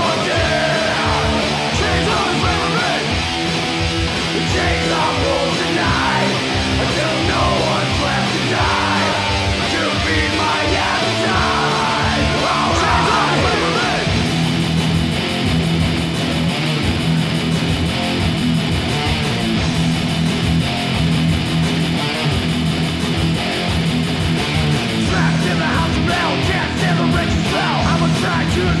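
Thrash metal song played on distorted electric guitars and bass, loud and dense, with the texture changing about halfway through.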